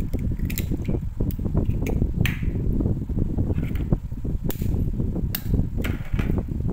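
A metal spoon tapping eggshells to crack them: a series of sharp clicks, roughly one a second, over a steady low rumble.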